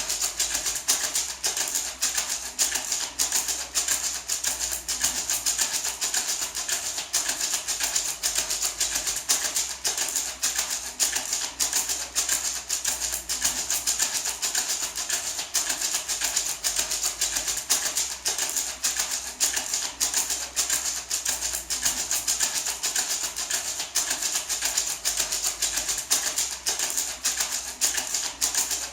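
Small gourd maraca shaken continuously in a steady, fast rhythm, a dry rattle on every stroke.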